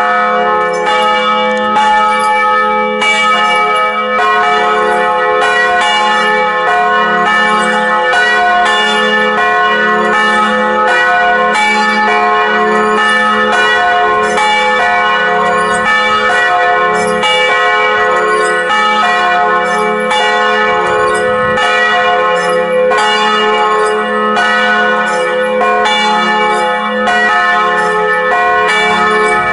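Two church bells, tuned to F-sharp and A, swinging together in a free-standing wooden bell tower, sounding strike after strike with their tones overlapping over a steady low hum: ringing in to high mass.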